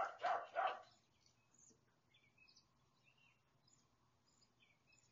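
A dog barks three times in quick succession in the first second, then stops. After that only faint, scattered high chirps of birds remain over low background noise.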